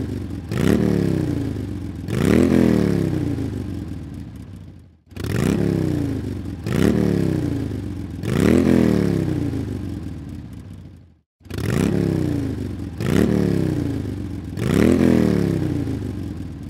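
Motorcycle engine revved in sets of three throttle blips. Each blip rises quickly in pitch and falls away more slowly. The same set of three repeats about every six seconds, with a brief break between sets.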